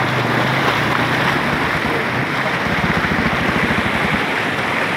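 Floodwater rushing and churning through a bridge opening: a loud, steady roar of turbulent water.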